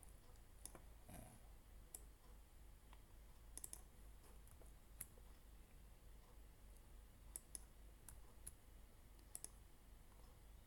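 Faint computer mouse clicks, scattered and irregular, some in quick pairs, over a low steady hum.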